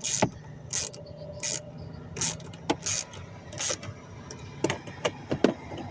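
Ratchet with an extension clicking as it works a cabin-filter cover bolt, short sharp clicks at about one every 0.7 s, then a quicker irregular run of clicks near the end. A low steady hum runs underneath.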